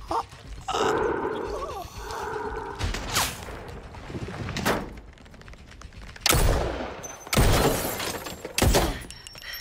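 Film soundtrack of a violent attack inside a car: a person's strained, choked cries, then several loud bangs and crashes in the last few seconds.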